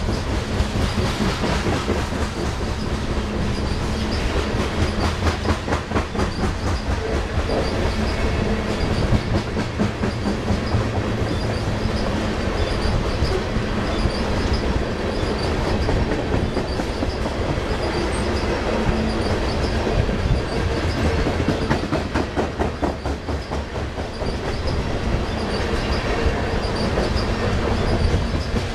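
Loaded coal hopper cars rolling past: a steady rumble of steel wheels on rail with rapid, continuous clicking as the wheels cross the rail joints.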